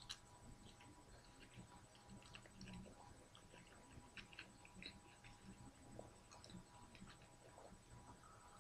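Faint chewing and small wet mouth clicks from someone eating a lamb yiros pita wrap, scattered irregularly, over a faint steady hum.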